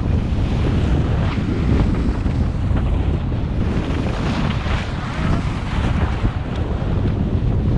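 Wind buffeting the action-camera microphone while skiing downhill, a steady low rumble. Over it, the hiss and scrape of skis carving over firm groomed snow, swelling with each turn.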